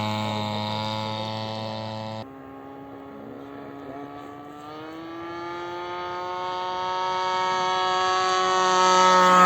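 Engine of a radio-controlled scale model warplane in flight. It fades, drops away abruptly about two seconds in, then grows steadily louder with its pitch slowly rising as the model comes back round.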